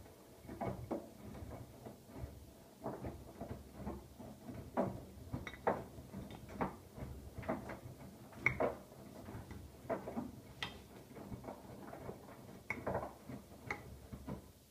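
Siemens iQ700 front-loading washing machine in its wash phase: the drum turns with a low motor hum while the tumbling load knocks and clicks irregularly, about once or twice a second.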